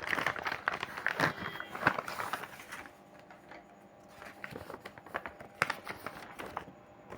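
Paper envelope being opened and its contents handled: crinkling and rustling paper with sharp little clicks, busiest in the first couple of seconds, then quieter, scattered handling sounds.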